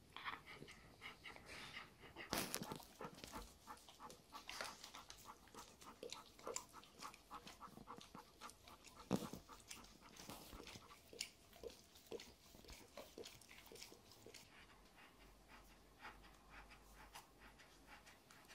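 Golden retriever mother and her puppy play-wrestling: quiet panting and mouthing, with many short, sharp clicks and a louder knock about nine seconds in.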